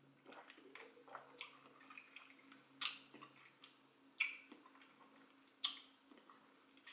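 A person swallowing a sip of a drink and then smacking their lips while tasting it: a few soft wet mouth sounds, then three sharp lip smacks about a second and a half apart.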